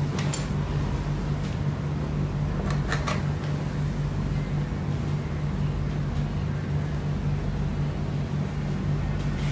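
Steady low machine hum, as of a fan or air conditioner running, with a couple of faint clicks, one just after the start and one about three seconds in.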